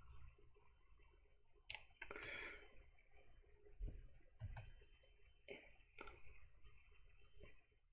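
Faint, scattered clicks of a computer mouse and keyboard, about six or seven sharp clicks spread through near silence.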